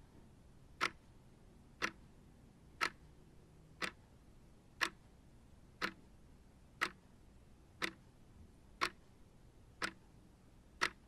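Clock ticking, one sharp tick a second, evenly spaced.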